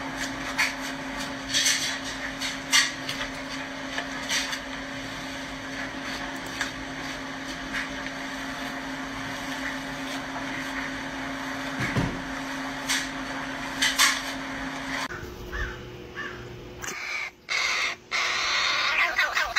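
A steady low hum with scattered light clicks, then near the end a fledgling corvid's harsh, repeated begging calls as it is offered food.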